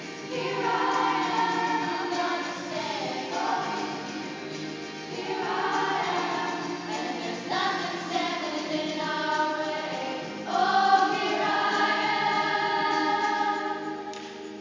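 A choir singing in several voices, in long held phrases.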